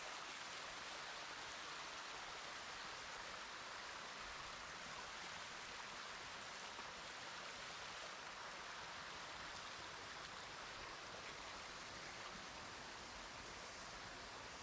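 Mountain stream water running steadily over rock slabs and small cascades.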